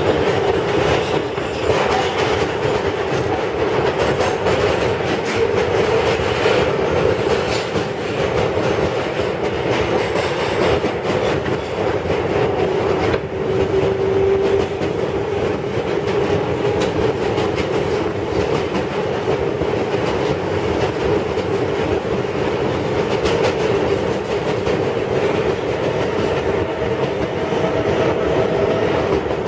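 Interior running noise of a Kawasaki R142A subway car travelling along the track: a steady rumble of wheels on rail, with clicks as the wheels pass over the joints. A brief steady tone stands out from the noise about halfway through.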